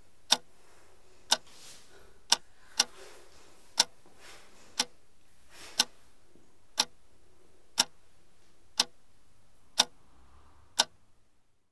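Sharp, loud ticks about once a second, like a slow clock, with one extra tick between the third and fourth. A low steady hum lies underneath and fades away near the end.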